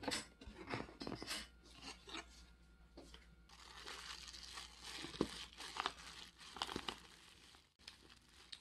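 A cardboard food box opening with scattered scraping and crackling, then the steady crinkle of a clear disposable plastic glove as a gloved hand mixes and squeezes seasoned rice in a plastic tray to shape rice balls.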